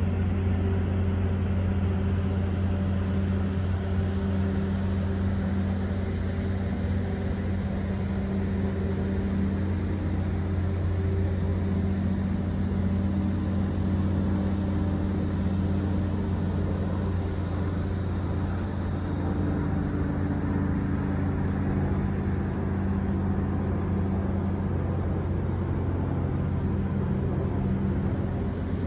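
Steady low machine hum with a few held tones and a noisy haze above them, running without a break.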